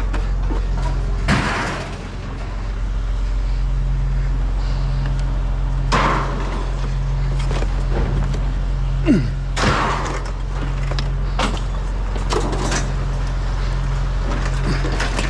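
Scattered knocks and clatters of scrap items being handled and set down, every few seconds, over the steady low drone of a vehicle engine running.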